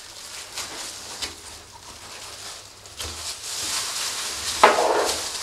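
A knife cutting and scraping along the shoulder-blade bone of a pork shoulder: soft, irregular slicing and scraping that grows hissier about halfway through. There is a short burst of voice near the end.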